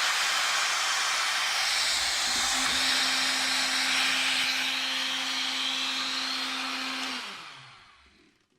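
A 150-watt electric turbo air pump runs at full power from a 12 V inverter, with a steady rush of blown air and a motor hum. About seven seconds in it is switched off, and the hum drops in pitch as the pump spins down and fades out.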